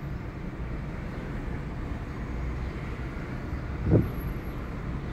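Steady low rumble of distant road traffic, with one short low thump about four seconds in.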